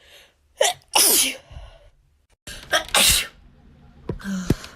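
A young woman sneezing twice, about two seconds apart, each sneeze led by a short voiced catch of breath: allergy sneezes.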